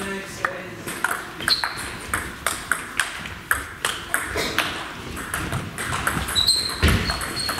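Table tennis rally: the celluloid-type ball clicking off the rubber bats and the table, about two hits a second. A low thud comes near the end.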